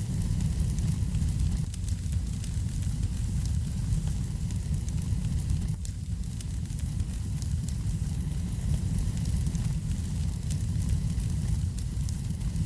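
Wood fire crackling, with many small sharp pops over a steady low rumble of the flames.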